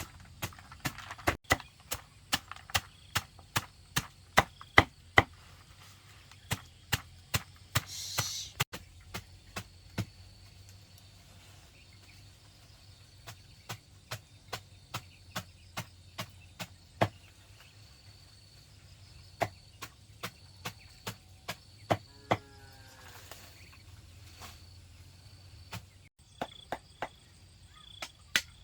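Repeated sharp chopping strikes, about two a second for the first ten seconds, then slower and more spaced out, with faint insects behind.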